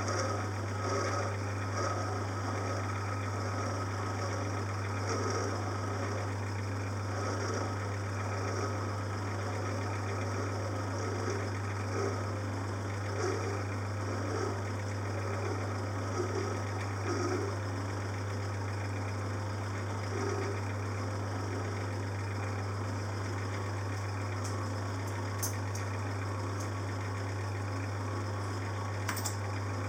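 Metal lathe running with a steady hum while a parting-off tool cuts through a brass piston blank, the cutting noise rising and falling irregularly. A couple of sharp clicks come near the end.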